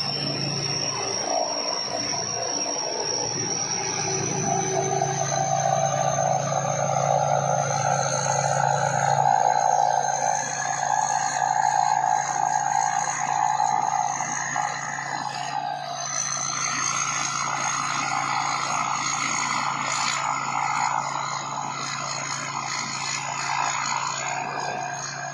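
Rice combine harvester running steadily under load, its engine a continuous drone with a steady high whine on top. The pitch of the machinery shifts about two-thirds of the way through.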